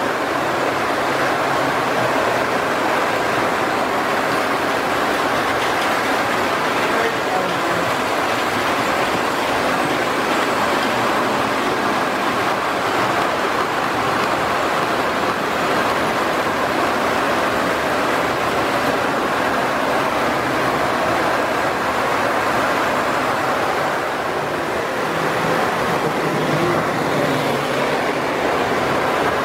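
Lionel O-gauge toy trains running on metal track, a steady rolling noise of their motors and wheels.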